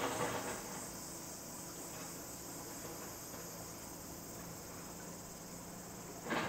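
Steady high-pitched chirring of insects with a faint even pulse, over a low steady hum. Two brief swishes of noise, one right at the start and one near the end, are the loudest moments.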